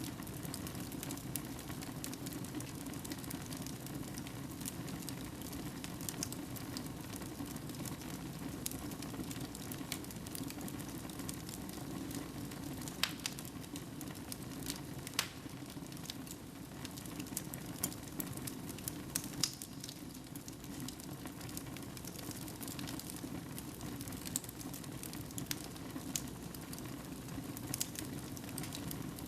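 Fireplace fire burning: a steady low rush of flames with scattered sharp crackles and pops.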